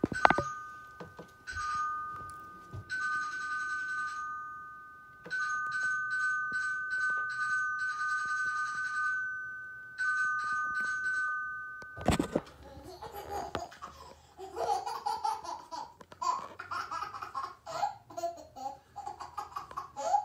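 Two-tone electronic doorbell chime, rung several times over, played on a television. About twelve seconds in, after a sharp click, it gives way to a baby laughing.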